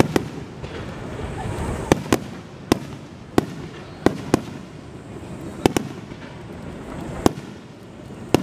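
Aerial fireworks shells bursting: about ten sharp bangs at irregular intervals, some in quick pairs, over a steady background hiss.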